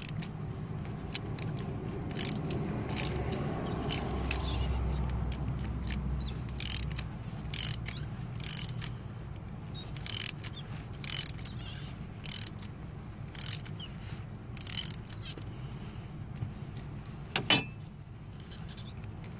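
Ratchet wrench clicking in short strokes, about once a second, as it turns a glow plug out of a Mercedes Sprinter diesel engine's aluminium cylinder head. There is a steady low hum underneath and a single louder metallic clank near the end.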